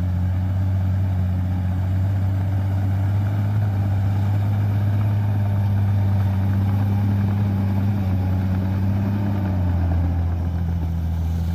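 Bulldozer's diesel engine running steadily under load, its pitch dropping slightly near the end.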